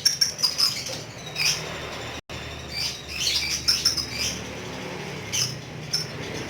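Lovebird chirping in quick bursts of sharp, high-pitched calls, with short pauses between the bursts.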